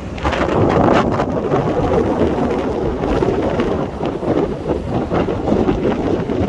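Wind buffeting the microphone: a loud, rough, crackling rumble.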